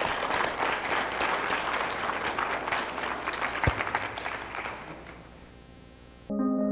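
Audience applauding, a dense patter of many hands clapping that fades away about five seconds in. Music begins abruptly just before the end.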